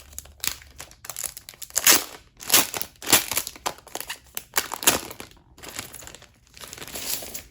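Paper and plastic packaging rustling and crinkling in irregular strokes as A4 photo prints are handled and unwrapped, busiest in the first five seconds and sparser near the end.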